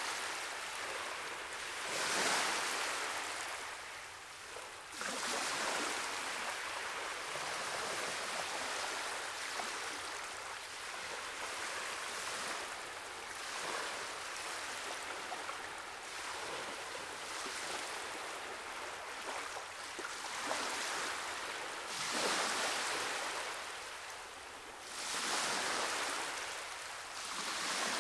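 Ocean surf: a steady rush of waves washing over rocks, swelling and ebbing every few seconds.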